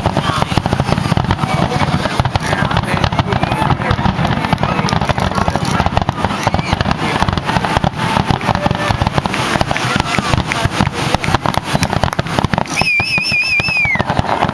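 Aerial fireworks going off in quick succession: a continuous barrage of bangs and crackling from bursting shells. About a second of warbling whistle comes near the end.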